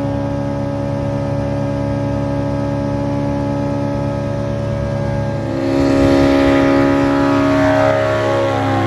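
Light aircraft's engine and propeller droning steadily. A little over halfway through it grows louder, then falls in pitch as the plane passes by.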